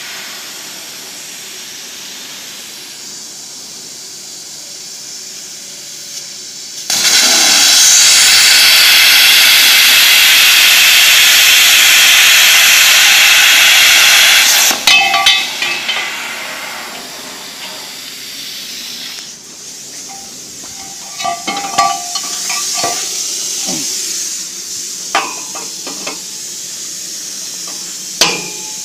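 CNC plasma torch cutting a steel pipe: a fainter hiss gives way about seven seconds in to a loud, steady hiss of the plasma arc, which cuts off abruptly about halfway through. Scattered metallic clinks and knocks follow.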